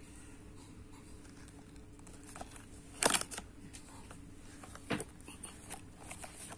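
Plastic-wrapped sticker packs being handled in a cardboard box: soft rustling and small clicks, with two short, sharper rustles about three and five seconds in, the first the loudest.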